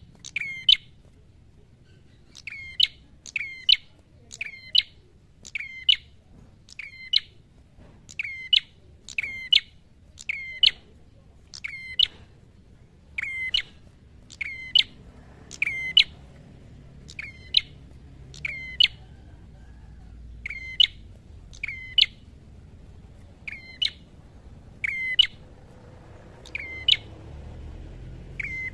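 Tailorbird giving a long, repeated series of sharp, high chirps, about one a second and sometimes in quick pairs. Each note sweeps down quickly in pitch.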